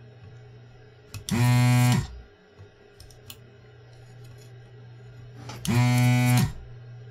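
Desoldering gun's vacuum pump buzzing in two short bursts, each under a second, as it sucks solder from a joint on the circuit board. A low steady hum runs underneath.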